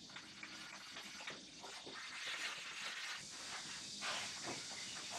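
Faint, irregular swishing and rubbing of a cloth wiping down wooden furniture.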